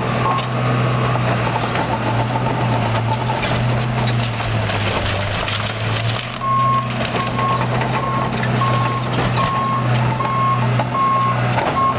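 Caterpillar 939 crawler loader's diesel engine running steadily under load while it works through house debris, with crunching and clattering through the first half. Its reverse alarm starts beeping about halfway through, a little over once a second, as the machine backs up.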